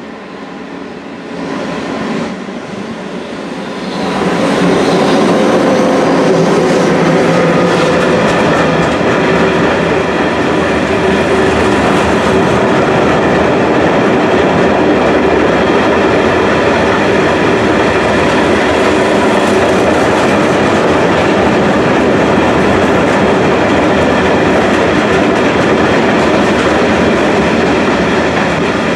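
Freight train of flat wagons loaded with steel coils passing close by. The locomotive draws near, and about four seconds in the sound jumps to a loud, steady rolling of wagon wheels on the rails, with clacks over the rail joints, that goes on to the end.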